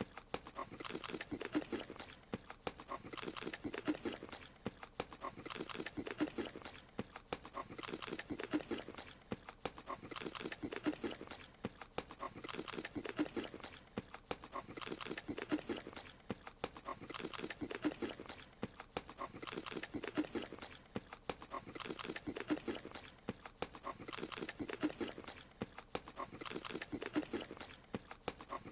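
A small creature's eating sound: rapid wet munching and crunching in bursts, the same bite sound repeating about every two and a half seconds as the animation loops.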